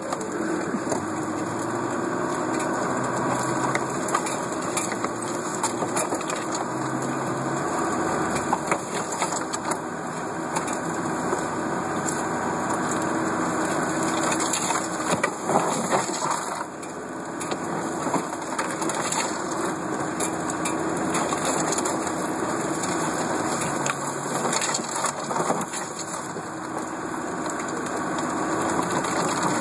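Land Rover Defender engine pulling steadily in second gear low range, with the differential locked, climbing a steep, rough track. Branches and undergrowth crack, crunch and scrape against the vehicle throughout, loudest a little past the middle.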